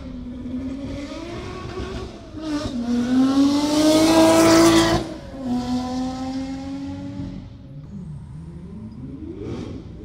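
Ferrari engine under acceleration, its note climbing to the loudest point about four to five seconds in and then dropping suddenly. It settles into a lower, steadier note that fades, and begins climbing again near the end.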